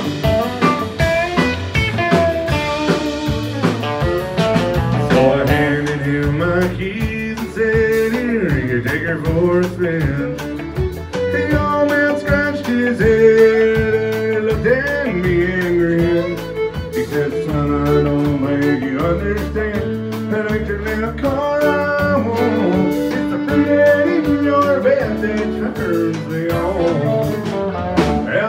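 Live country band playing a song: acoustic and electric guitars, fiddle, bass guitar and drums, with a male singer.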